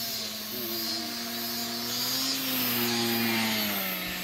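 Small RC seaplane's motor and propeller buzzing as it taxis on the water, rising a little in pitch and loudness about two seconds in, then dropping in pitch near the end.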